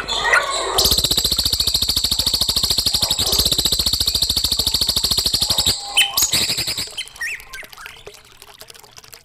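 Songbird song: a loud, fast rattling trill of many even notes a second, starting about a second in and lasting about five seconds, then scattered short chirps and whistled sweeps that trail off quieter.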